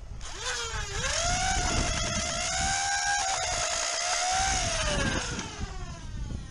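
Electric motors of a flywheel foam-dart blaster revving: a high motor whine that climbs as the flywheels spin up, with a brief dip about a second in, holds steady for several seconds, then falls away as they spin down near the end.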